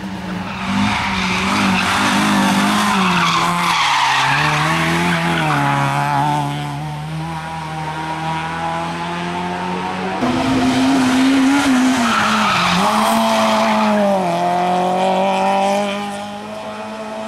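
A rally car's engine being driven hard, its pitch repeatedly dropping and climbing again as the driver brakes, shifts and accelerates, with tyre noise. It gets louder again about ten seconds in, on a fresh burst of acceleration.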